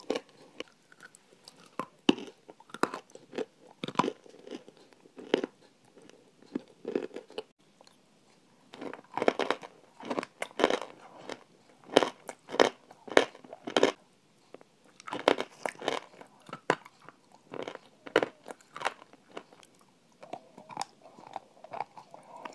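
Close-miked biting and chewing of frozen yogurt spooned from the tub: loud, irregular crunches one after another, with a short lull about a third of the way in.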